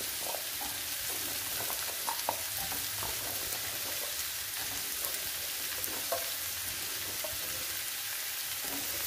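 Sliced beetroot, potato and shallots sizzling steadily in coconut oil in a non-stick frying pan over a low gas flame, with a few light clicks as the vegetables are stirred.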